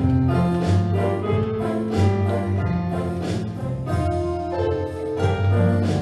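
Instrumental music: a melody of changing notes over a low bass line, with no singing.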